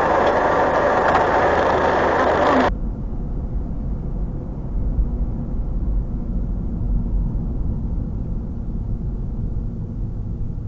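Loud, dense noise inside a bus for the first few seconds, then a sudden cut to the steady low rumble of engine and road noise in a car cabin, as heard by a dashcam while the car drives at about 50 km/h.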